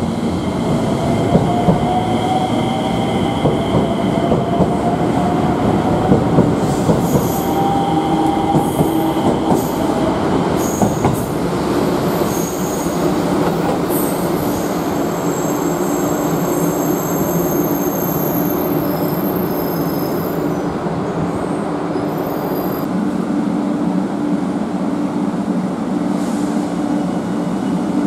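JR West 227 series electric trains: one pulling away, its motor whine climbing slowly in pitch over the first several seconds, over a steady rumble of wheels on rail. From about seven seconds in, high wheel squeals come and go for several seconds while another train runs in.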